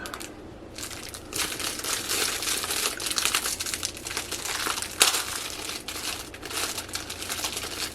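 Plastic snack-cake wrapper crinkling steadily as it is handled and opened, with one sharp crackle about five seconds in.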